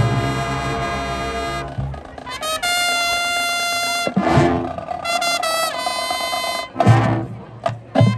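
Marching band music: a full band chord held and cut off about two seconds in, then brass playing long held notes, broken by short percussion hits.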